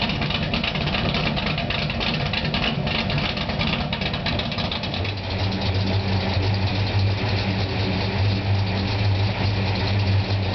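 1970 Pontiac GTO's V8 idling through an exhaust fitted with electric cutouts. About halfway through, the exhaust note turns louder and deeper, with a strong steady low drone.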